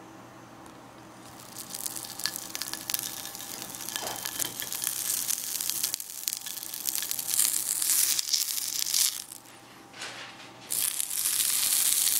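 Hot oil in a frying pan sizzling and spitting around a whole orange, starting about a second in with many sharp crackles. It dies down briefly, then flares up again near the end as the orange is pressed into the pan.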